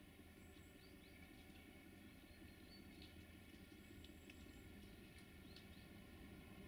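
Near silence: faint outdoor ambience with a low rumble and a few short, faint bird chirps.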